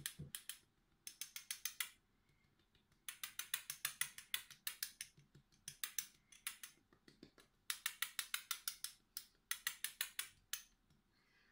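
Spice jar of ground cinnamon shaken over a cake filling in five short bursts, each a quick run of light clicks at about seven a second.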